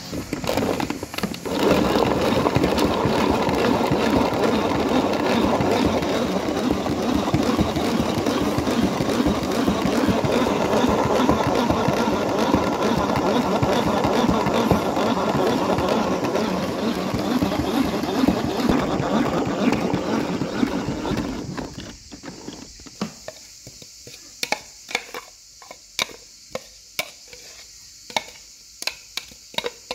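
Electric food chopper running for about twenty seconds, its blades cutting through fresh herbs, garlic and chili pepper, then stopping. After it stops, a spoon makes light, irregular clicks against the bowl.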